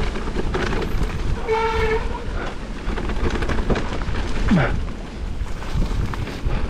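Mountain bike riding down a rough, wet trail: wind rushing over the microphone, with the bike rattling and knocking over the ground. About one and a half seconds in, a disc brake gives a short, flat squeal lasting about half a second.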